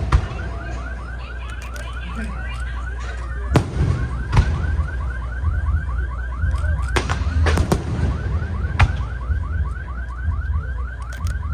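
An electronic alarm repeating a short rising chirp about four times a second, like a car alarm, over fireworks: a low rumble and several sharp bangs.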